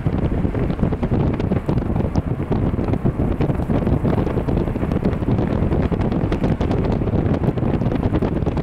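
Strong, gusty wind buffeting the camera microphone, a continuous low rumble that rises and falls with each gust.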